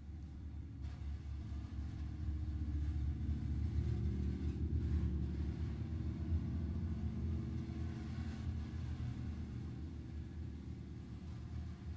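Contemporary chamber music played with extended techniques: a low rumble from mallets played on the strings inside a grand piano, with the percussion beside it. It swells over the first few seconds and then slowly eases off.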